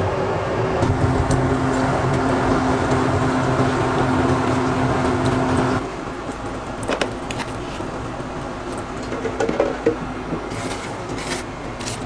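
Steady hum of a commercial conveyor oven's blower fans and belt motor; it stops abruptly about six seconds in, leaving quieter kitchen room noise with a few light clicks and knocks.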